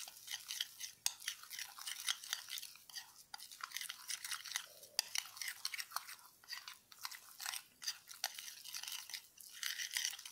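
A metal spoon stirring and scraping a thick, gritty paste of rice flour, oats and baking soda in a glass bowl: an irregular, continuous scratching and crunching, with the spoon grating against the glass.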